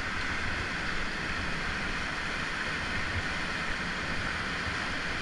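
Steady rushing of whitewater rapids close to the microphone.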